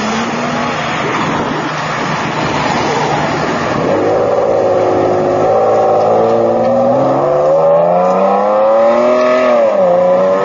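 Ferrari Enzo's naturally aspirated V12 accelerating hard away, its pitch climbing steadily, with a sharp drop at an upshift near the end before it climbs again.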